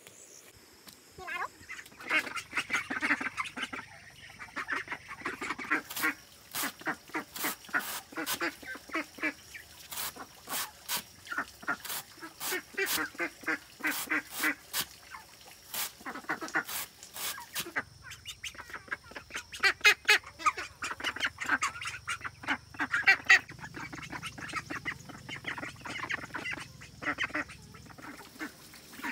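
Domestic ducks quacking over and over, with sharp knife chops on a banana stem, roughly one or two a second, through the middle stretch.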